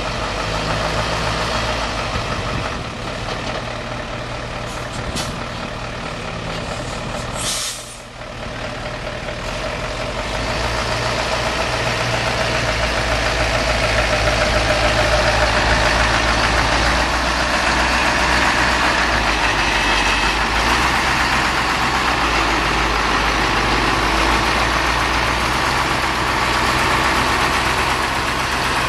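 Mercedes-Benz 3053 heavy-haul truck's diesel engine running under load as it slowly tows a barge on a multi-axle transporter trailer, growing louder from about ten seconds in as it draws closer. A short air-brake hiss comes about seven seconds in.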